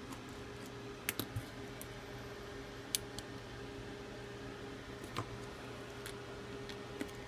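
Small metal clicks and ticks of a precision screwdriver and tweezers as tiny screws are taken out of a phone's midframe and set down on a magnetic card: three quick clicks about a second in, then single ones every couple of seconds, over a faint steady hum.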